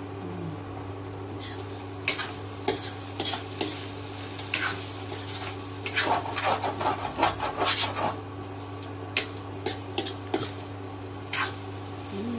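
Food being stirred in a cooking pot on the stove: irregular scrapes and clinks of the stirring utensil against the pot, busiest about six to eight seconds in, over food sizzling in the pot and a low steady hum.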